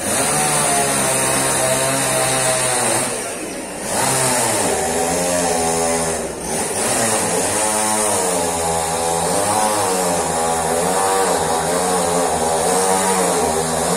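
Chainsaw running and cutting, its engine pitch rising and falling as it works through wood, with two short drops in level.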